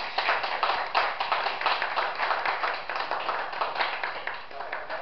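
Hands clapping in a quick, dense run, thinning out near the end.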